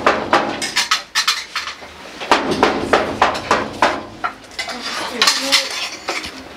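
Repeated, irregular metallic banging and rattling, like knuckles knocking on a sheet-metal door, in clusters of quick strikes with short ringing after each, with brief voices mixed in.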